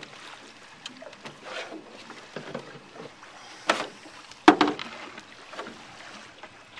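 Water slapping around a small moored boat, with scattered light knocks and two sharp clunks about three and a half and four and a half seconds in, the second the loudest.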